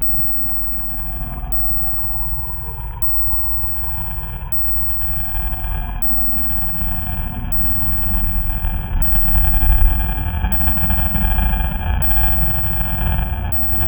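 Designed horror ambience: a deep rumbling drone that swells, loudest about ten seconds in, under a layer of steady, eerie high tones.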